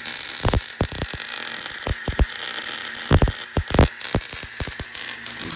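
Wire-feed (MIG) welder arc crackling steadily, with irregular sharp pops, as it lays a weld joining a steel motor-mount bracket to the car's frame.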